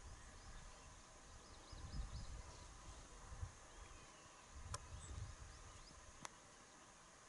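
Faint open-field ambience: scattered faint high bird chirps, a few low rumbles, and two sharp clicks about a second and a half apart in the second half.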